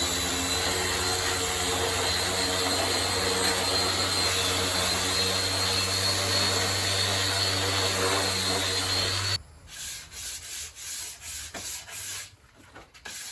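A woodworking power machine runs steadily through wooden slats to bring them to a uniform thickness, with a steady hum and a high whine. It shuts off abruptly about nine seconds in, and a few quieter, irregular rubbing strokes follow.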